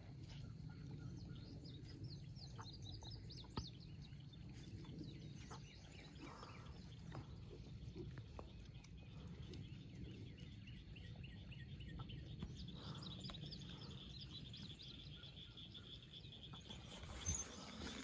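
Small birds chirping and singing over a steady low outdoor rumble, with a quick run of repeated chirps in the last few seconds. Two brief knocks, one a few seconds in and one near the end.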